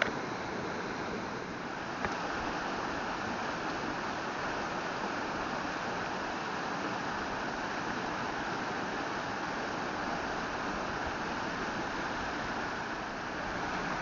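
Steady rush of water flowing over the rocks of a mountain stream, an even, unbroken noise.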